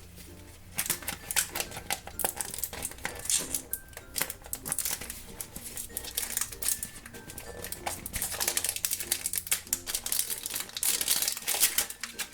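Plastic packaging of a toy surprise egg being handled and pulled open: rapid irregular crinkling and clicking, over faint background music.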